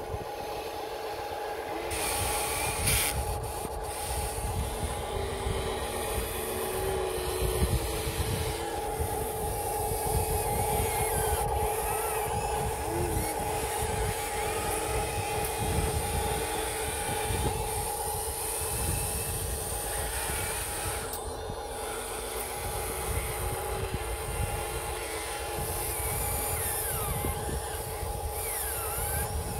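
Huina radio-controlled excavator's electric motors running with a steady whine as it digs and swings to load dirt into a model dump truck, over an uneven low rumble.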